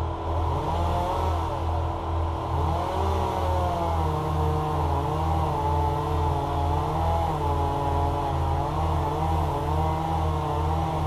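An engine running continuously with a low throb about three times a second, its pitch wavering up and down as the load or throttle changes.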